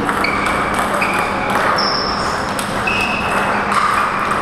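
Table tennis ball struck back and forth off bats and table in a rally: about five sharp ticks roughly a second apart, each with a short ringing ping. A low steady hum runs underneath.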